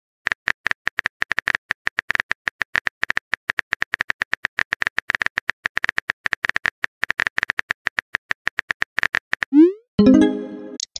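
Rapid clicks of a phone keyboard typing sound effect, several a second. Near the end comes a short rising swoop, then a pitched tone that fades as a new chat message pops up.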